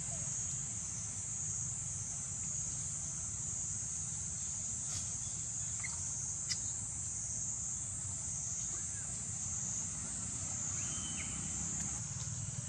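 Steady, high-pitched drone of an insect chorus, with a low rumble underneath and two faint clicks about halfway through.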